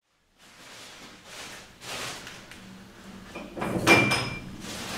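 Knocks and handling noises in a room. The loudest is a knock about four seconds in, followed by a brief high ring.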